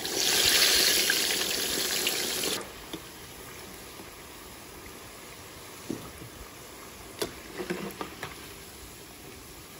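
Whole red snapper sizzling loudly in hot frying oil, dropping suddenly about two and a half seconds in to a quieter steady sizzle of potato slices frying. A few clacks of the metal skimmer against the pan come in the second half.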